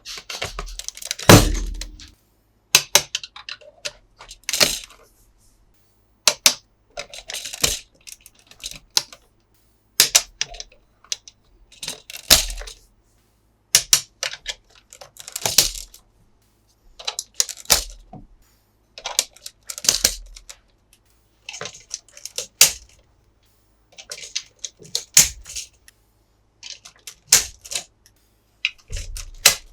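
Hands handling a toy and its packaging: short clusters of plastic clicks, taps and crinkles, roughly every two seconds, with silence between.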